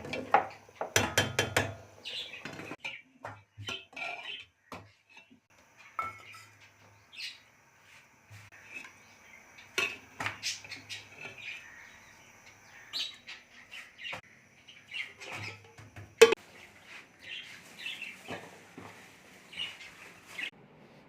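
Scattered clinks and knocks of dishes and cutlery, thickest in the first couple of seconds, with one loud sharp knock about sixteen seconds in.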